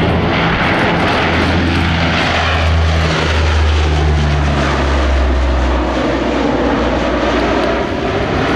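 Lockheed P-3 Orion's four Allison T56 turboprop engines and propellers droning as it passes low and close, the low drone dropping in pitch about three seconds in as it goes by.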